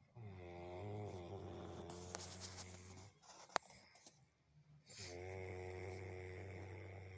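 Sleeper snoring: two long, pitched snores, each about three seconds, with a sharp click between them.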